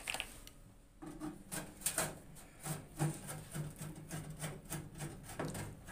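Screwdriver working at the screws of a microwave oven's sheet-metal outer cover: irregular small clicks and scrapes of metal on metal, starting about a second in.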